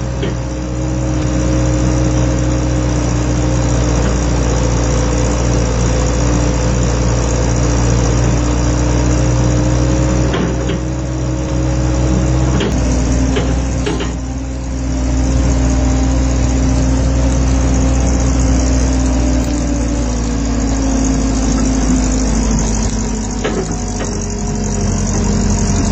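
A large heavy-equipment engine running steadily under load. Its pitch steps down about halfway through and shifts again later, with a few clanks along the way.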